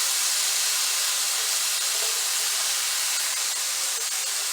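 Chicken pieces sizzling as they brown in a hot pan: a steady high hiss with faint crackles.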